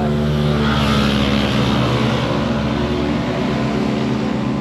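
Motor scooter engine idling steadily.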